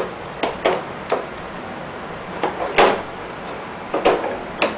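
A string of sharp clicks and knocks, about eight, the loudest near the middle, as parts of an energy-saving device are handled and fitted into an air conditioner.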